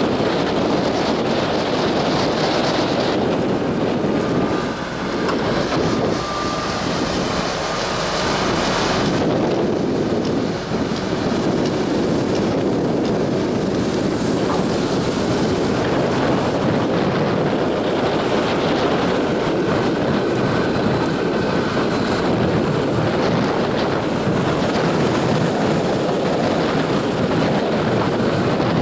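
Diesel engines of hydraulic excavators running steadily on a dredging barge, with wind buffeting the microphone and harbour water sloshing.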